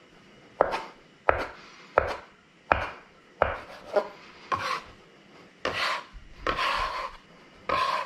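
A blade chopping through a rope of ricotta gnocchi dough onto a cutting board: seven sharp, evenly spaced taps about two-thirds of a second apart, then a few longer scraping strokes near the end.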